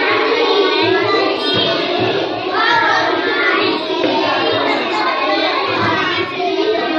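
Many young children's voices at once, high-pitched and overlapping, with no break.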